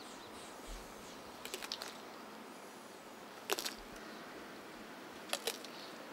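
Pinta Island giant tortoise biting and chewing a prickly pear cactus pad: a few crisp crunches, the loudest about halfway through, over a faint hiss.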